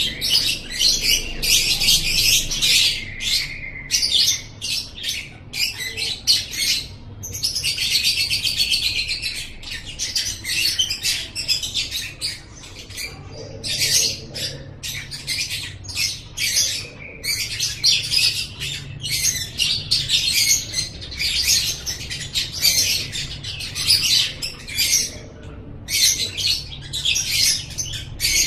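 Lovebird 'ngekek': long runs of rapid, shrill chattering broken by short pauses every few seconds.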